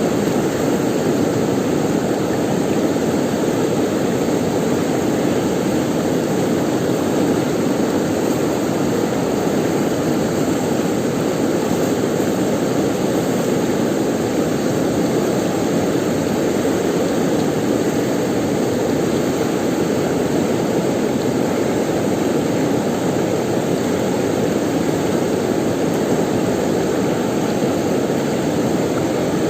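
Steady rushing of river water flowing over rocks, an even, unbroken sound.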